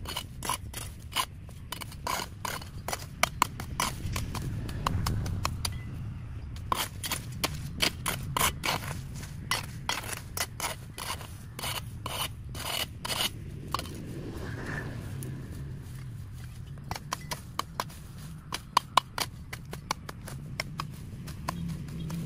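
Hand tools cutting and scraping through overgrown vegetation: a fast, irregular run of sharp clicks and snips over a low steady rumble, thinning out for a few seconds a little past the middle.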